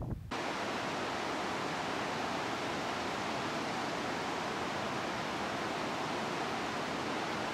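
A steady, even rushing noise, like running water, that cuts in suddenly just after the start and holds at one level throughout.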